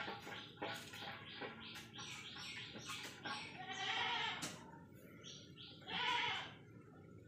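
Two long, bleating animal calls, about four and six seconds in, with shorter high chirps in between.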